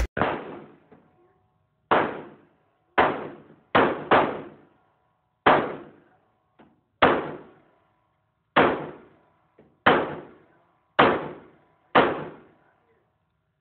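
Handgun shots fired one at a time, about eleven at an irregular pace of roughly one every second or so, each trailing off in a short echo.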